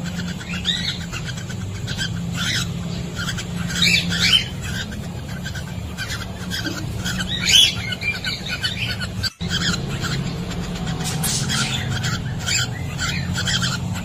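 Cockatiels calling and chattering in breeding condition, a run of short repeated chirps over a steady low hum. The sound cuts out for a moment about nine seconds in.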